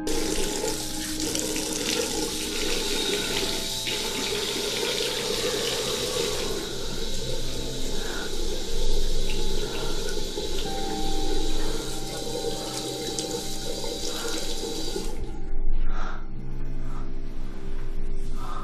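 Water running hard from a tap into a sink, a steady splashing rush that cuts off about fifteen seconds in.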